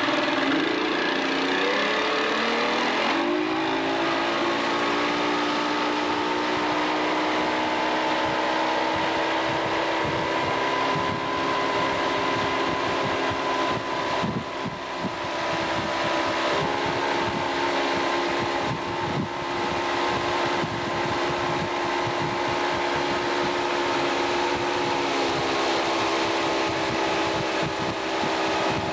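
Tow boat's engine revving up over the first few seconds as the boat pulls the inner tube up to speed, then running steadily at cruising speed. A steady rush of wind and water runs underneath.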